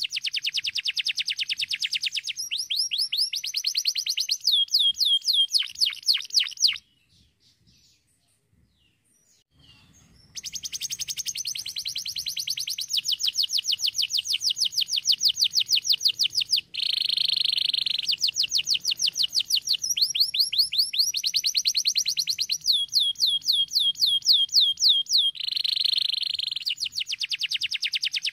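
Domestic canary singing in long runs of rapid trills, each made of one note repeated very fast, with a break of about three seconds near a quarter of the way in before the song picks up again.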